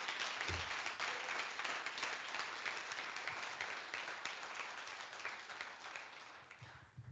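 An audience applauding, a dense patter of many hands clapping that slowly fades and dies out near the end.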